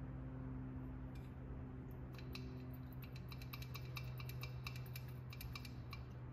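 Quick run of small metallic clicks and snaps as a carburetor part is handled and its moving pieces worked, over a steady low hum.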